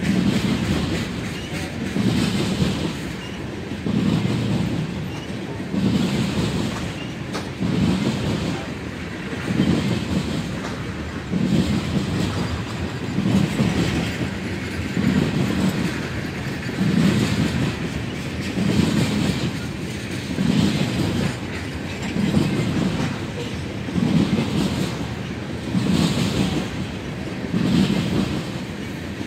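Freight train of tank cars rolling past, its wheels clacking over the rail joints in a steady rhythm, a louder burst about every two seconds.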